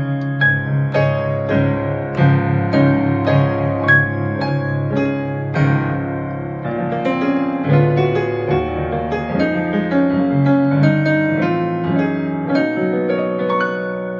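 Korg Krome workstation keyboard playing a piano sound: chords and moving notes played by hand, dying away near the end. It plays without obvious pops or cutouts, with its micro SD card freshly replaced.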